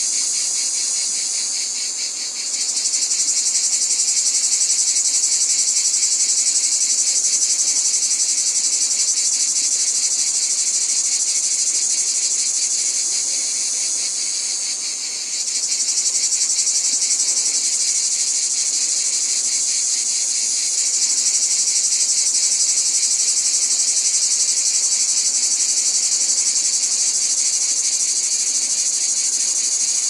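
Dense, high-pitched chorus of trilling insects, a rapid, steady buzzing pulse that dips briefly twice.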